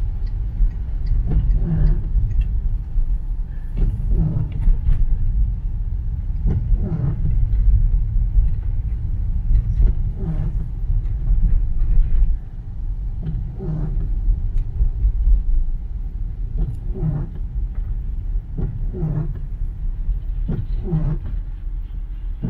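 Car cabin road rumble while driving in rain, with the windscreen wipers sweeping across the wet glass every two to three seconds.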